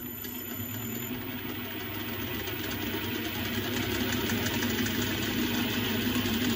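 Metal lathe running, its motor humming steadily as the spinning chuck drives a metal tube for a turning cut on its outside diameter; the cutting noise grows gradually louder.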